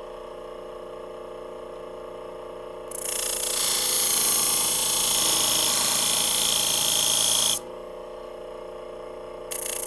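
A motor-driven 600-grit sharpening wheel runs with a steady hum. About three seconds in, the steel shear blade is pressed to the wheel and grinds with a loud, hissing rasp for about four and a half seconds, then is lifted off. It is set back on the wheel near the end.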